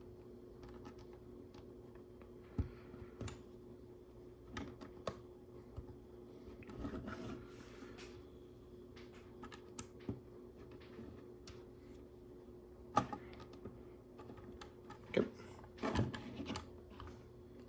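Plastic LEGO pieces clicking and rattling now and then as they are handled and pressed together. The sharpest clicks come in the last few seconds, over a faint steady hum.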